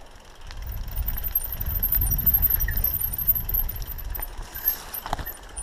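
Mountain bike rolling down a steep dirt trail: a low rumble of tyres on dirt and wind on the camera, with faint high squeaks and a couple of sharp knocks near the end.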